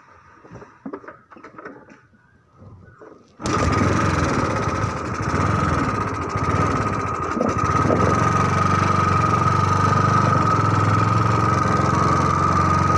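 A few faint clicks and knocks, then a small engine starts abruptly about three and a half seconds in and keeps running steadily and loudly, with a low drone and a steady high whine.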